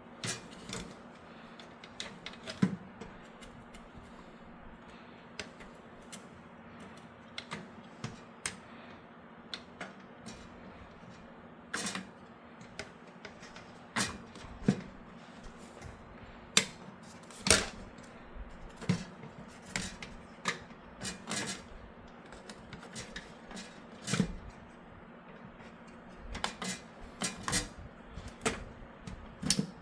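Irregular clicks, taps and knocks of parts being handled and fitted inside a PC case, the riser cable mount being positioned. A faint steady hum runs underneath.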